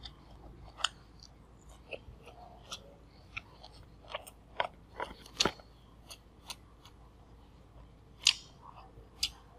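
Close-miked chewing of food with the mouth closed: quiet, irregular wet mouth clicks and smacks, about one a second, a few of them sharper.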